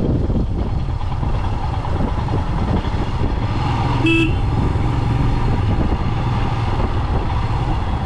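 Motorcycle engine running steadily while riding, with wind rush on the microphone, and a short horn beep about four seconds in.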